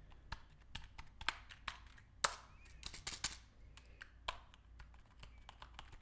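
Keys of a COOKI K40 keyboard pressed by hand at an irregular pace, giving light clicks and clacks, with one louder clack a little past two seconds in.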